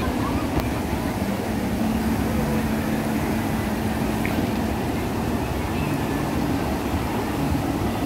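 River rapids: whitewater rushing steadily over rocks, an even, continuous rush.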